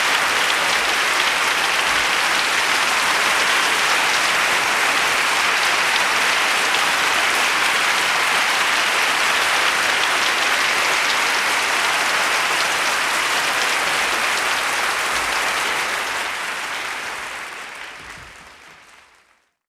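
Applause from a crowd clapping, dense and steady, then fading out over the last few seconds.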